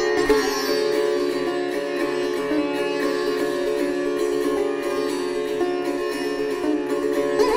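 Sitar playing raag Puriya, its plucked notes ringing and bending over a steady tanpura drone. Fresh plucks come just after the start and again near the end.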